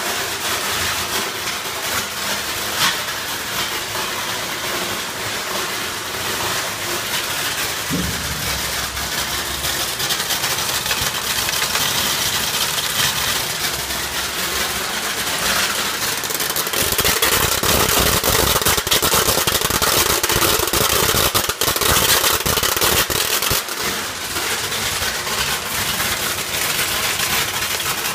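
Shelled-peanut optical color sorter running: a steady machine whir and hiss with a dense patter of rapid clicks as the kernels stream through. It grows louder and busier a little past halfway, with a single thump early on.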